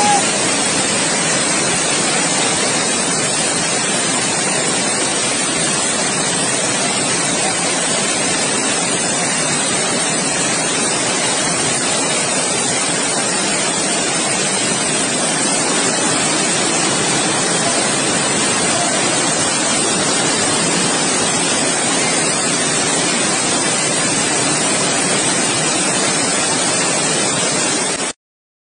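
Floodwater rushing: a steady, even rush of water that cuts off suddenly at the very end.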